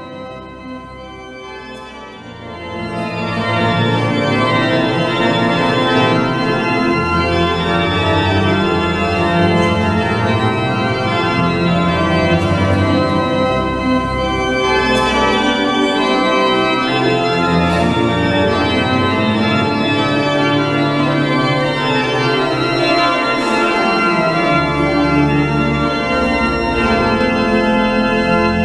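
Church organ playing slow, sustained full chords over held bass notes, swelling louder about three seconds in and then holding.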